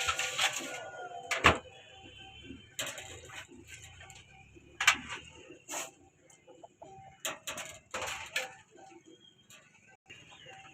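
A cleaver chopping chicken on a cutting block: sharp knocks at uneven intervals, about seven in all, with chickens clucking faintly in the background.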